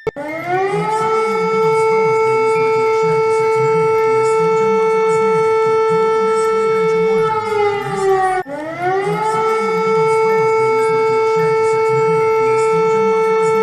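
Civil defense warning siren winding up to a steady wail and holding it. Near the middle it begins to wind down, then cuts off and winds straight back up to the same steady tone.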